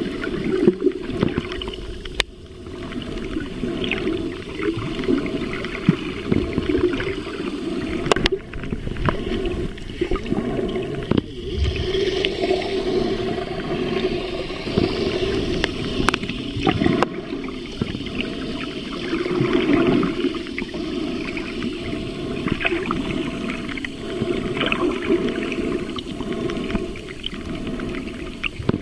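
Muffled underwater sound picked up by a submerged camera: water swirling and bubbling, swelling and fading every few seconds, with a few sharp clicks.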